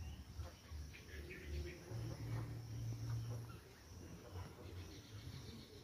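Faint outdoor ambience: a steady high insect drone, with a low rumble for a second or so near the middle.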